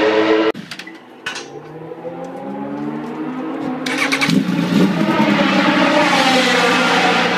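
A racing motorcycle engine is being started: a rising whine as it turns over, a sharp click, then the engine catches about four seconds in and runs and revs loudly. It is preceded by a brief burst of a bike at speed that cuts off abruptly about half a second in.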